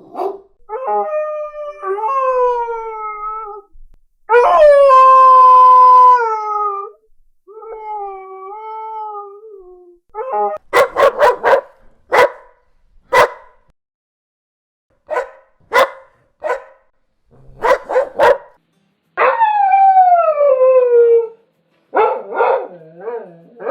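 A dog howling and barking in turns. Three drawn-out howls come first, the middle one loud and held steady, the others sliding down in pitch. Two runs of short sharp barks follow, then another howl that falls in pitch, and a few more barks near the end.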